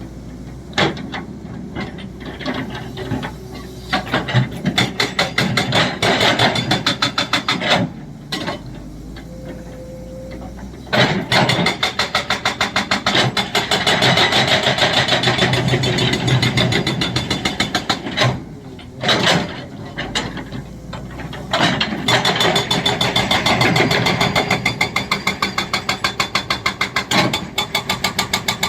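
Excavator-mounted hydraulic breaker hammering, rapid repeated blows in runs of several seconds separated by short pauses.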